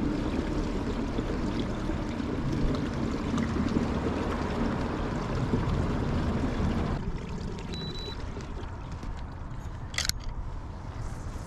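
Water sloshing and trickling close by, a busy wash that turns quieter about seven seconds in, with one sharp click near the end.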